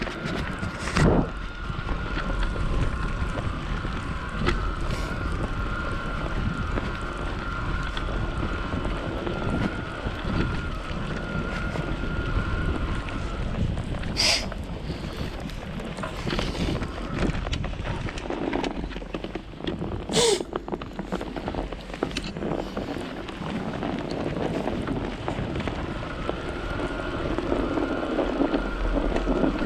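Wind buffeting the microphone while riding an e-bike, with a steady whine from the electric motor through the first half that returns near the end. Two sharp knocks, about 14 and 20 seconds in, rise above the wind noise.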